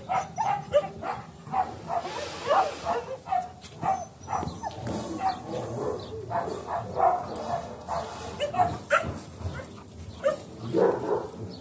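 Dogs barking, short barks in quick, irregular succession.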